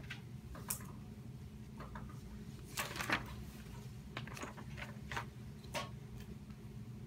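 Quiet classroom room tone: a steady low hum with scattered small clicks and rustles, several of them close together about three seconds in.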